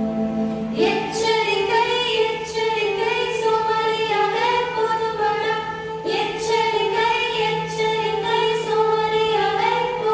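Recorded music with a singing voice over sustained held notes.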